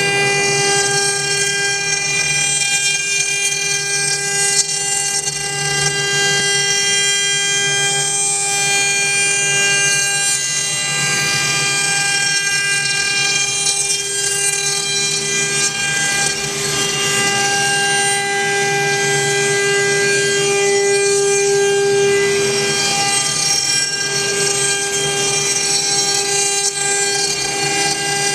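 TR-1325 four-head CNC router running with its rotary axes, the spindle motors giving a steady high whine of several stacked tones over the hiss of the bits cutting wood.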